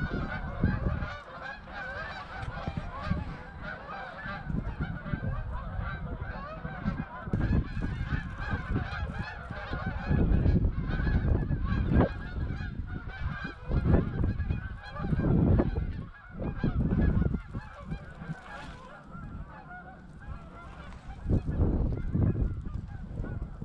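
A large flock of Canada geese honking as it flies over: a dense chorus of many overlapping calls that never lets up. It is broken several times by loud low rumbles.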